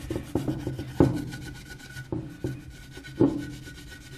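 Scotch-Brite pad scrubbing the aluminium gasket face of a Lambretta engine case: uneven rubbing strokes with several sharp knocks.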